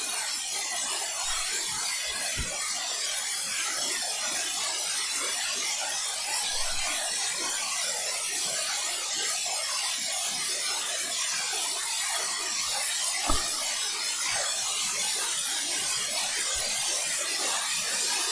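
Steady background hiss with no distinct event, and a faint click about 13 seconds in.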